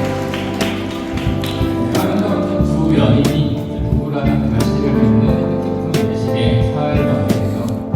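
Background music with held notes and recurring percussive hits.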